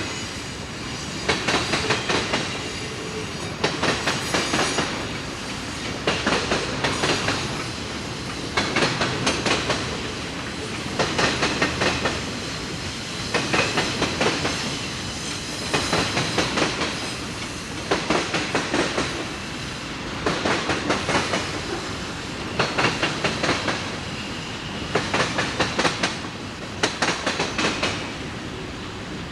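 Railroad cars rolling past, their wheels clacking over rail joints in a steady, regular rhythm, with a burst of clacks about every two seconds as each car goes by, over a continuous rolling rumble.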